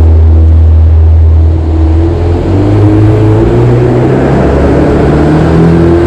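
Jet boat's inboard engine running hard, its pitch climbing from about two seconds in as the throttle opens, with river rapids rushing against the hull.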